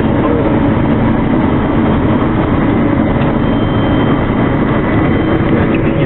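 Claas Lexion 520 combine harvester running under load while cutting winter barley, a loud steady drone of engine and threshing machinery heard from inside the cab.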